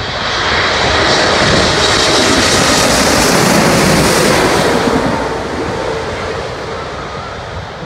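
Boeing 747-8's four GEnx jet engines passing low overhead on landing approach: a jet roar with a high whine that swells about half a second in, holds loud for several seconds, then fades away after about five seconds.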